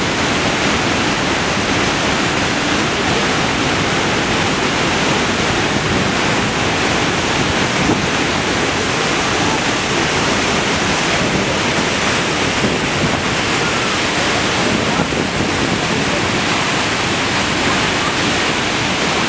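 The Rhine Falls, a large waterfall, with a great volume of water plunging and churning below in a steady, even rush.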